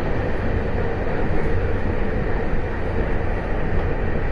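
Taiwan Railway EMU800 electric multiple unit running along the line, heard from on board: a steady rumble of wheels and running gear with a constant hum.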